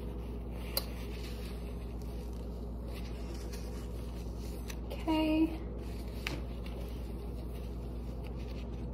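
Paper napkin rubbing across a tiled countertop, wiping up honey, faint over a steady room hum. A short hummed voice sound about five seconds in, and a couple of light clicks.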